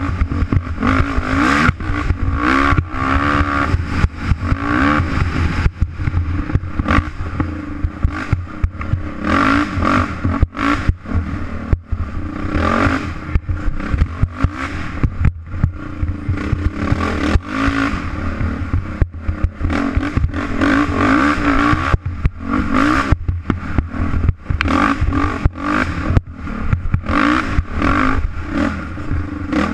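Off-road dirt bike engine revving up and down with the throttle as it is ridden hard along a rough trail, its pitch rising and falling every second or two, with a steady clatter and rattle from the bike over the bumps.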